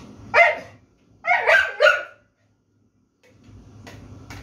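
A caged bulldog barking: one short bark, then a quick run of louder barks about a second in.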